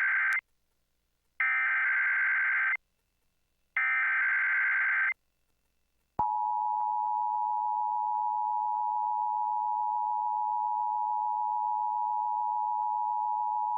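Emergency Alert System test signal: the end of one SAME header data burst, then two more harsh digital data bursts, each about a second and a half long and about a second apart. About six seconds in, the EAS attention signal starts: a steady two-tone alert tone of 853 and 960 Hz, held unchanged.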